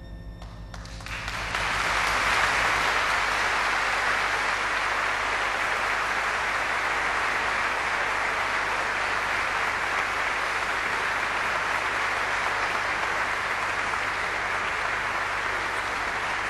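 Audience applauding: as the last held note of the music fades, clapping breaks out about a second in, builds quickly and then holds steady.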